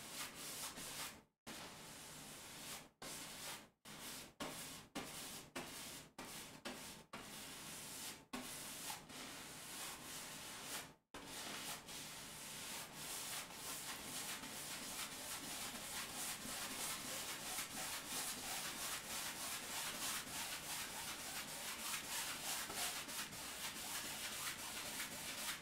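A wide bristle paintbrush scrubbing paint onto a stretched canvas, a dry rasping rub. It comes in short stretches with brief gaps for the first ten seconds or so, then runs on as continuous back-and-forth scrubbing.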